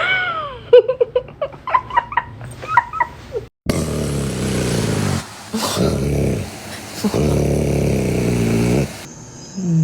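A dog whining with quick, high, bending whimpers and yips, then, after a cut, a dog growling in three long, low grumbles.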